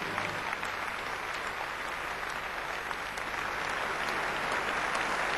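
Large theatre audience applauding steadily, the clapping swelling slightly toward the end.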